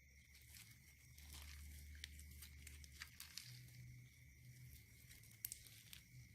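Slime being stretched and pressed by hand, giving faint scattered crackles and small sticky pops.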